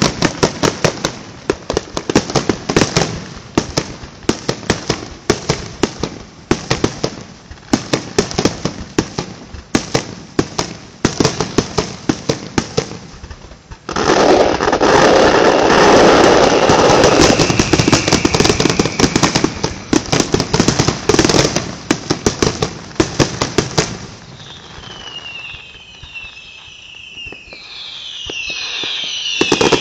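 Fireworks display: rapid strings of sharp cracks and pops, then about halfway a dense, continuous loud crackling that lasts some ten seconds. Near the end it quietens to several whistles that glide in pitch, before the cracks pick up again.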